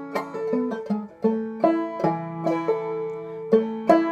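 Clawhammer banjo playing a slow passage in A, with single plucked melody notes and strums left to ring.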